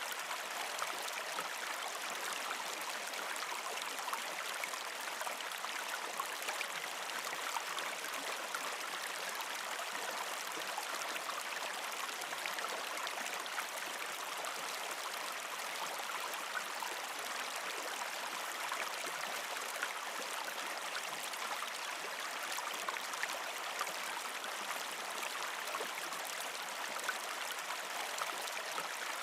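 Stream water flowing and babbling steadily.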